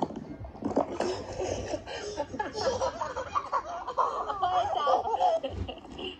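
High-pitched giggling laughter, a child's, in a long run of quick bursts, dying away near the end.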